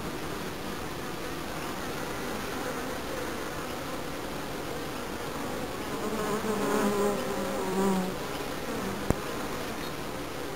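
Honeybees buzzing at a hive entrance, a steady hum of workers landing and taking off. About six seconds in, a bee flies close to the microphone and its buzz swells for about two seconds; a single sharp tick follows shortly after.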